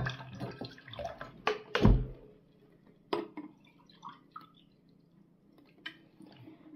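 Milk poured from a glass into a stainless steel pot, splashing for about two seconds and ending in a dull knock; then only a few faint clicks.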